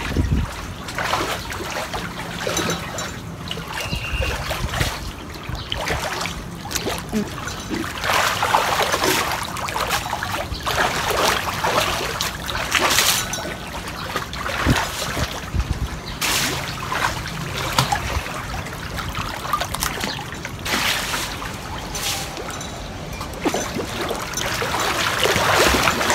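Pool water splashing and sloshing as swimmers kick and paddle, in irregular bursts.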